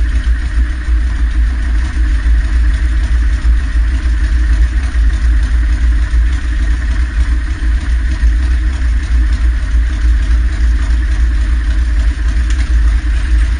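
Motorcycle engine idling steadily while the bike stands still, with most of its sound deep and low.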